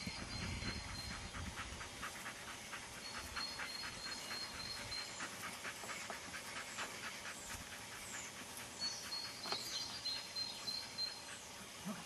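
A Belgian Malinois panting quickly, about four or five breaths a second.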